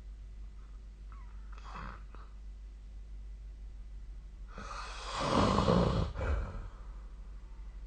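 A sleeping person snoring: a faint short breath about two seconds in, then one loud snore about two seconds long, with a low rattle in it. A steady low hum runs underneath.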